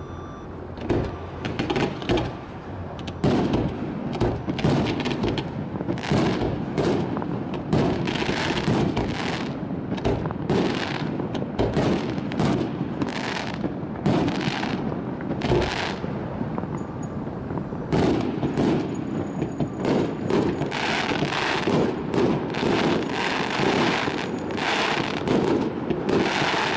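Fireworks display: a rapid, continuous run of bangs and crackles from bursting shells and fountains, thickening in the last several seconds.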